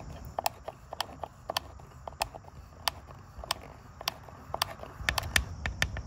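A screw being turned in by hand with a screwdriver through the plastic base of a garage door keypad: sharp, irregular clicks, a few a second, as the driver turns and the screw bites.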